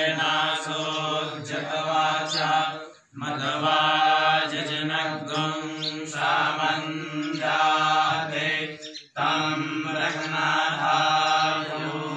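Male voices chanting Sanskrit mantras in a steady, measured recitation during a fire ritual. The chant breaks off briefly for breath about three seconds and again about nine seconds in.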